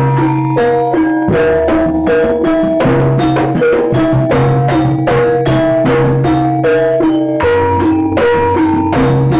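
Jaranan music played live: ringing gamelan-style metal percussion plays a stepping, repeating melody over drums and a low sustained tone, in a fast, even run of strokes.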